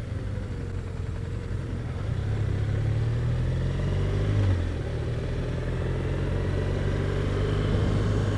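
BMW R1200RT's flat-twin engine running under way. Its note climbs for a couple of seconds, drops abruptly about four and a half seconds in, and then runs steady.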